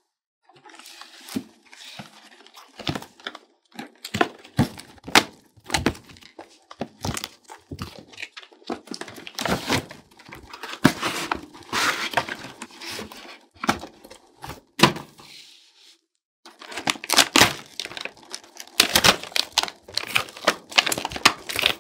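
Cardboard toy box being opened, tape peeling and tearing, and clear plastic packaging crinkling and rustling as the toys inside are handled, with scattered taps and thunks and a short pause about two thirds of the way through.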